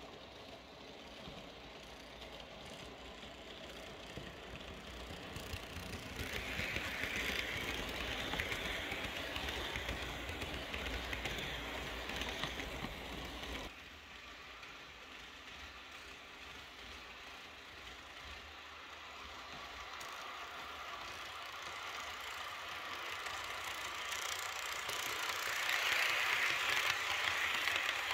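H0 scale model train running on the track, a steady rumble and rattle of motor and wheels that grows louder as it approaches. It drops suddenly about halfway, then builds again to its loudest as the coaches pass close by near the end.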